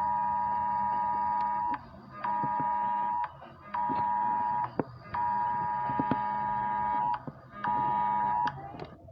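Mock Emergency Alert System alert tone: a steady electronic beep sounding in five separate stretches of uneven length, the longest about two seconds, broken by short gaps with sharp clicks.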